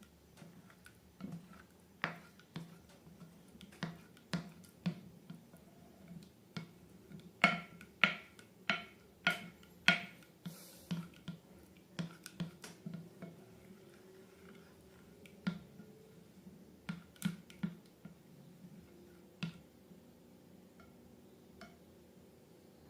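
Slime being worked by hand, giving irregular sharp clicks and pops, loudest and closest together around the middle.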